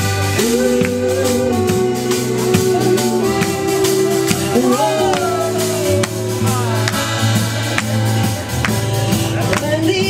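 A live pop-rock band playing loudly: drums keep a steady beat under sustained keyboard chords and bass, with a sliding melody line about five seconds in.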